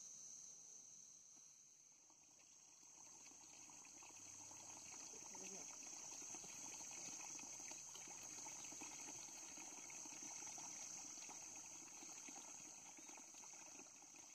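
Faint, steady high-pitched chirring of crickets, with a soft rushing noise swelling in underneath from about three seconds in.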